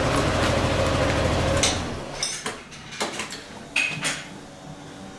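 Yamaha XMAX 300 scooter's single-cylinder engine idling, then switched off a little under two seconds in, followed by a handful of sharp knocks and clanks.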